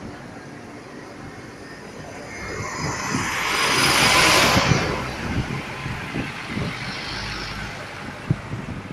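A bus passing close by: its engine and tyre noise swells, peaks about four seconds in, then fades away.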